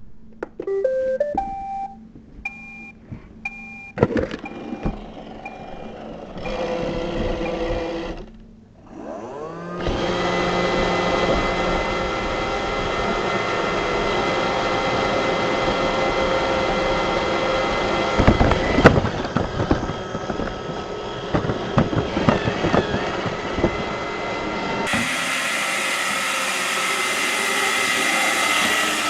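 Roomba robot vacuum playing a short tune of stepped electronic beeps, then its motor and brushes running with a steady whir that changes character abruptly near the end.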